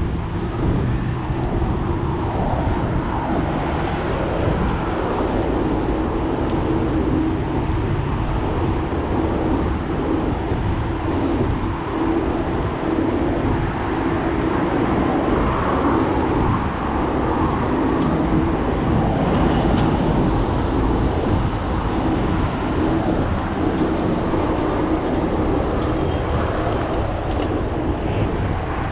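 Steady rolling noise of a hardtail mountain bike's tyres on pavement and wind rushing over the mic of a handlebar-mounted action camera while riding, with car traffic passing on the street alongside.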